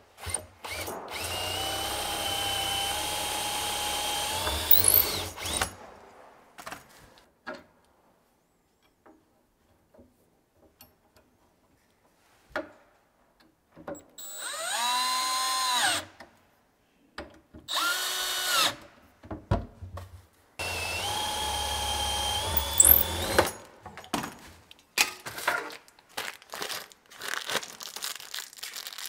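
Cordless drill boring handle holes through a wooden cabinet door. It makes two steady runs of a few seconds each, with two shorter bursts in between that speed up and slow down. Light clicks and handling noises follow near the end.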